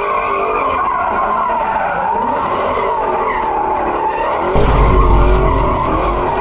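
Music with a wavering, sliding melody; a deep bass comes in suddenly about four and a half seconds in, followed by fast, evenly spaced ticks of a beat.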